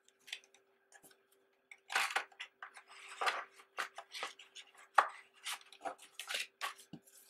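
A stack of glossy photo cards and a paper sleeve being handled on a table: quick papery scrapes, slides and taps as the cards are squared up and pushed into the sleeve, with one sharp tap about five seconds in.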